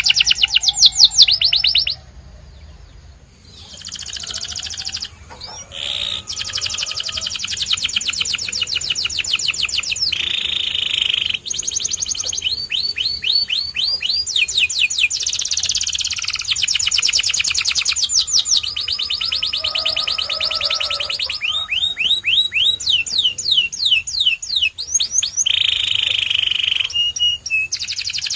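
Domestic canary singing a long song of fast trills, each a rapid run of the same falling note, switching to a new trill every few seconds, with a buzzing roll here and there. There is a brief lull about two seconds in.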